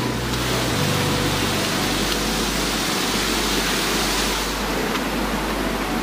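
Rushing water of a shallow creek cascade pouring over flat rock ledges: a steady hiss that grows brighter about half a second in and eases a little near the end.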